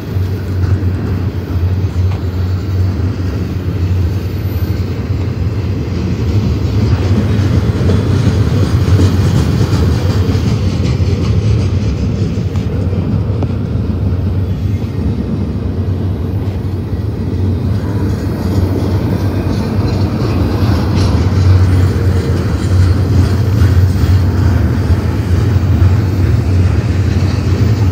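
Double-stack intermodal train's well cars rolling past close by: loud, steady noise of steel wheels running on the rails.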